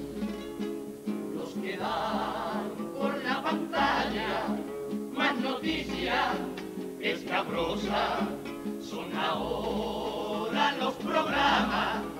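Carnival comparsa music: acoustic guitars strumming under repeated drum and cymbal strikes, with a group of men's voices joining in.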